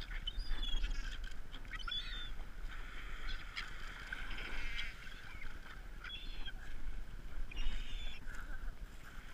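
Gulls calling: a string of short, separate squealing calls, several of them overlapping, over a steady low rumble.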